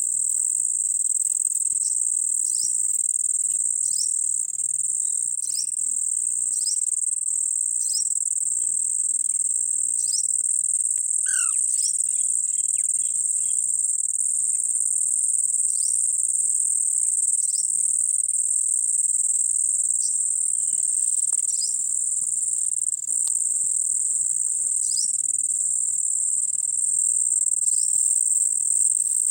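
A steady high-pitched insect drone, with short falling bird chirps every second or two and a brief rising bird call about eleven seconds in.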